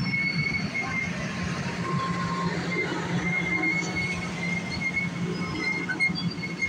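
Amtrak passenger coaches rolling past close by: a steady rumble of steel wheels on rail, with thin high squealing tones from the wheels that come and go.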